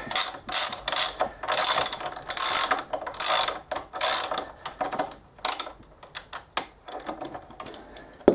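Ratchet wrench clicking in repeated back-and-forth strokes as motorcycle front brake caliper mounting bolts are run in and tightened; the strokes come about every half second at first, then grow shorter and sparser.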